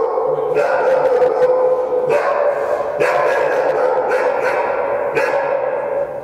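Akita Inu dog barking, a run of loud, drawn-out barks about a second apart.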